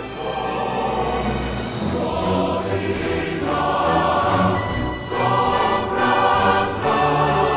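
Background music: choir singing over an orchestra.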